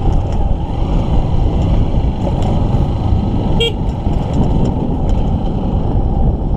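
Honda XR150L's single-cylinder four-stroke engine running steadily as the motorcycle is ridden along a rough dirt track. About three and a half seconds in there is one very short horn toot.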